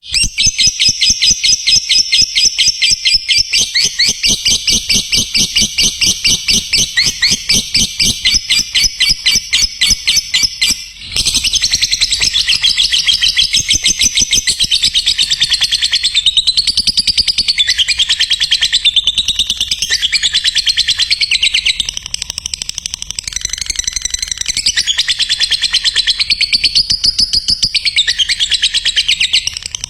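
Lovebird ngekek: a long, rapid, unbroken chattering trill, high-pitched and loud, with one brief break about 11 seconds in.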